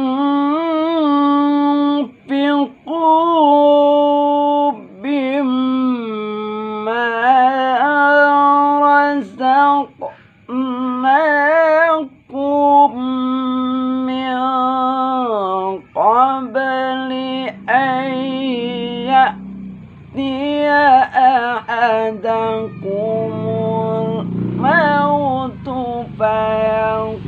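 A man's voice reciting the Quran in the melodic tilawah style: long held, ornamented notes that waver in pitch, broken by short breaths. A low rumble joins in behind the voice in the second half.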